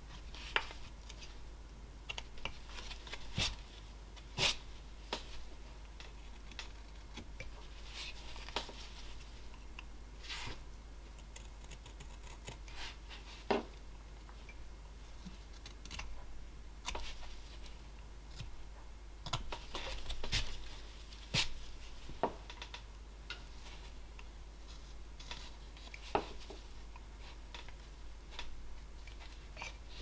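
Flexcut roughing knife slicing basswood (lime) in short, irregular strokes: soft scraping cuts broken by sharp clicks.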